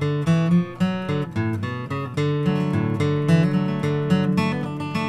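Background acoustic guitar music, a steady run of plucked notes.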